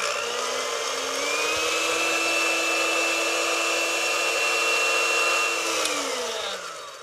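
Countertop blender motor running, blending a liquid spice marinade in a glass jar. Its whine steps up in pitch about a second in, holds steady, then winds down near the end as it is switched off.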